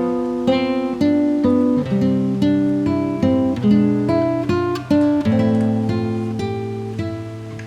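Background music: acoustic guitar played in plucked and strummed chords, a new chord or note about every half second.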